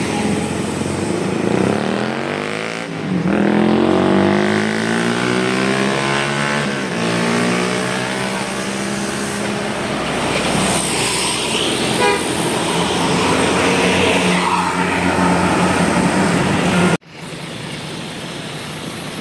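A large bus passing close by on the road: its engine note sweeps down in pitch as it goes by, then settles into a steady drone. The sound cuts off abruptly near the end.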